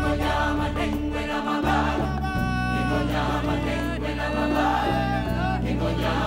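Background music: a choir singing over long held bass notes.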